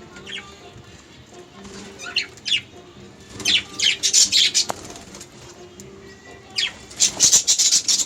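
Budgerigars calling in clusters of short, harsh, high-pitched chirps and squawks: a few about two seconds in, a rapid run from three and a half to four and a half seconds, and another run near the end.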